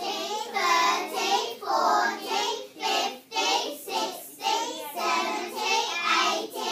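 A class of young children chanting numbers together in a sing-song rhythm, counting by tens from ten to a hundred, about two numbers a second.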